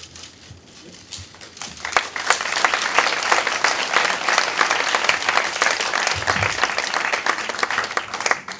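Audience applauding: a few scattered claps, then full, dense clapping from about two seconds in that stops just before the end.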